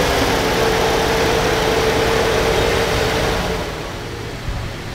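Steyr 1500A's air-cooled V8 petrol engine running at a steady idle with a steady whine over it. It drops away to quieter background about three and a half seconds in.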